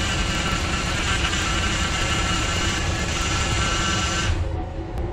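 Power steering pump on a 2006 Chevrolet Impala with the engine running, making a loud, steady whine while the system still has air in it after a steering rack replacement. The whine stops abruptly about four seconds in, leaving a low engine rumble.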